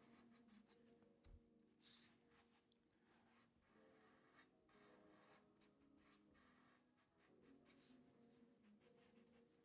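Felt-tip marker scratching on paper in a run of short, faint strokes as fur lines are inked, with a faint steady low hum beneath.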